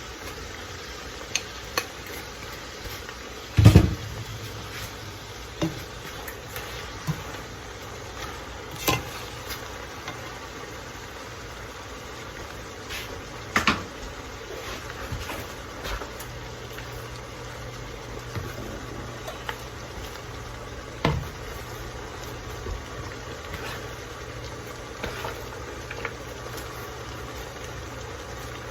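Collard greens and onions sizzling steadily in hot oil in a pot as they are stirred, with occasional sharp knocks of the utensil against the pot, the loudest about four seconds in.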